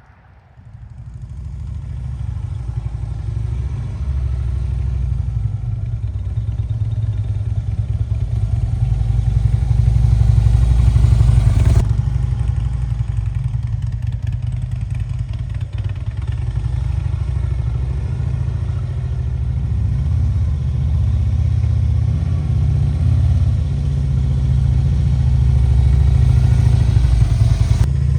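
Harley-Davidson Street Glide Special's Twin Cam 103 V-twin starting up and then running at idle with a deep, steady exhaust note. It swells louder around ten seconds in and eases off again shortly after.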